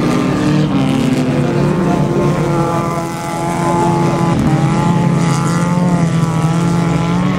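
Several small hatchback race cars' engines running hard on a dirt track, revving up and down through the gears, with one rising sharply about halfway through.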